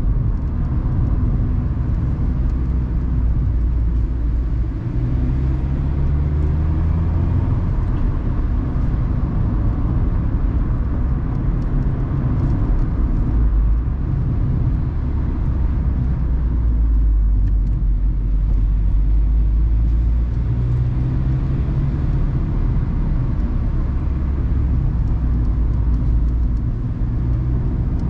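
ND Mazda Roadster's four-cylinder engine pulling along a winding road, its note rising in pitch a few times as the car accelerates, heard from the open cockpit with steady tyre and wind noise.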